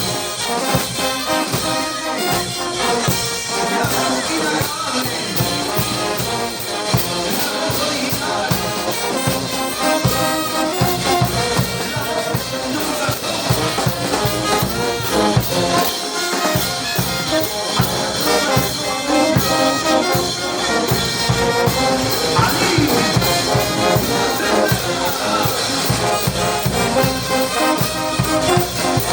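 Peruvian brass band playing with trumpets and trombones to the fore over a steady beat.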